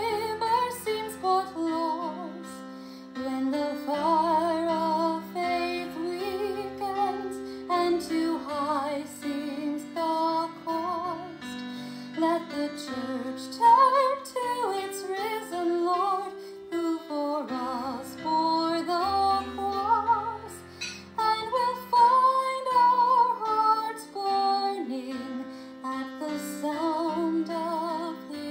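A woman singing a hymn with vibrato on long held notes, over instrumental accompaniment, as music for the offertory.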